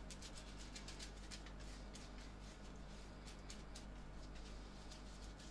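Glue brush spreading a thin layer of glue across a shoe sole: faint, quick scratchy brush strokes, several a second, coming irregularly.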